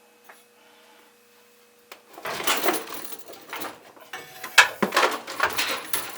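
Hand-sawing through the metal handle of a reel mower: quiet at first, then rasping saw strokes starting about two seconds in, roughly two a second.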